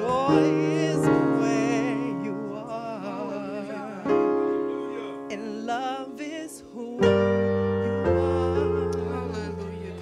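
Church keyboard playing slow, sustained chords, a new chord struck about every one to three seconds, with a woman singing a free, wavering worship line over it.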